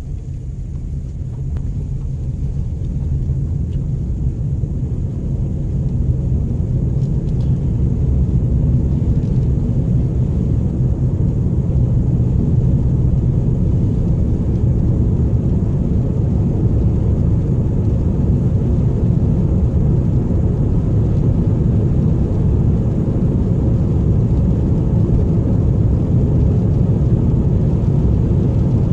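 Low, steady rumble of a car's engine and tyres heard from inside the cabin, growing louder over the first several seconds as the car picks up speed, then holding steady.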